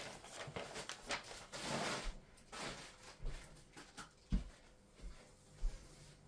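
Faint rustling of a sheet of paper being handled, with a few small knocks and a short thump about four seconds in.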